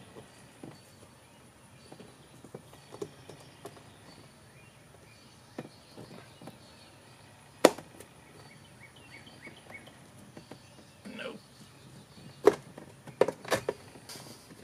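Handling noise from a gauge being pressed and worked into a gauge pod's rubber reducer ring: scattered small clicks and knocks of plastic and rubber, with one sharp click about halfway through and several more near the end.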